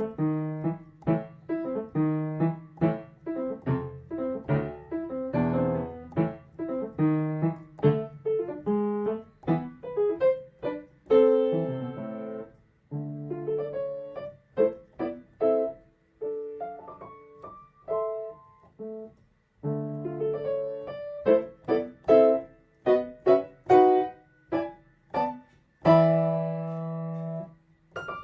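Solo piano music: a quick run of separate struck notes and chords, ending on a held chord near the end.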